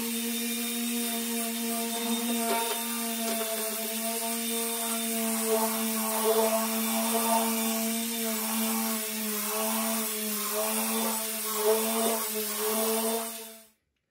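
Electric polisher with a polishing pad running steadily against a car's colour-sanded clear coat, buffing it back to a shine; its motor hum wavers slightly as the pad is worked across the paint. It cuts off suddenly near the end.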